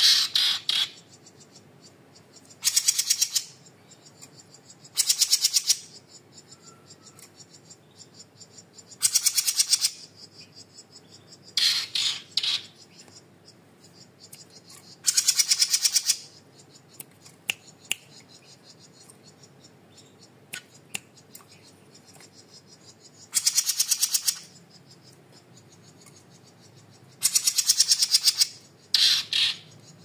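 Small caged songbird giving short, loud, rapid rattling trills, about nine of them, each under a second, with pauses of one to several seconds between.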